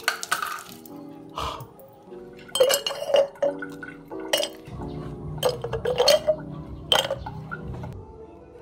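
Ice chunks clinking into a glass jar, a string of sharp clinks, some in quick clusters, over soft background music.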